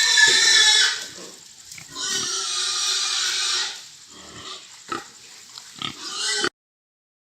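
Pigs squealing as they are loaded: two long, loud, high squeals, then quieter short grunts and a few knocks. The sound cuts off suddenly about six and a half seconds in.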